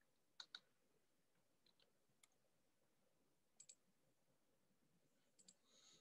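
Near silence with a few faint clicks, several of them in quick pairs, the clearest pair about half a second in.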